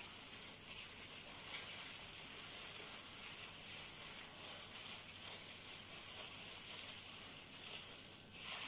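Plastic bag rustling and crinkling in the hands, over a steady high hiss.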